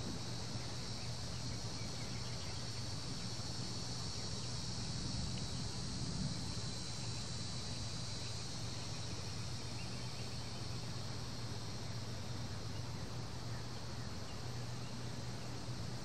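Cicadas droning in a steady chorus, a continuous high-pitched buzz, with a low steady hum underneath.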